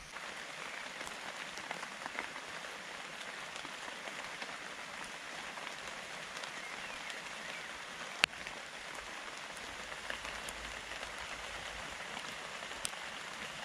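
Steady rain falling, an even hiss with scattered drop ticks, and one sharp loud tap about two-thirds of the way through.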